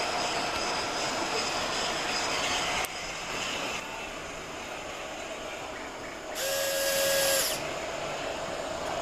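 Gauge 1 model narrow-gauge trains running, a steady mechanical whir that drops in level about three seconds in. About six seconds in, a short locomotive whistle with a hiss sounds for just over a second.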